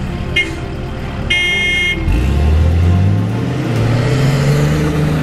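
Vehicle horn giving a brief beep, then a longer toot lasting under a second. After that the engine speeds up, its note rising over about two seconds.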